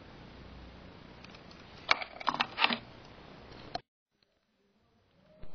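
A quick cluster of sharp clicks and knocks, handling noise, about two seconds in, over a faint steady hiss; the sound then cuts out completely for more than a second before the hiss comes back.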